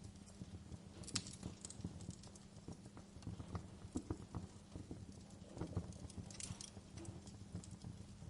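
Wood fire crackling in a fireplace: irregular small pops and snaps, a few louder ones, over a steady low rumble.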